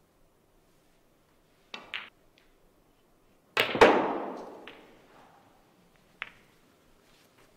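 Snooker balls clicking: a light pair of clicks about two seconds in, then a much harder cue-on-ball strike and ball-on-ball knock a moment later that rings away, and a single click near the end.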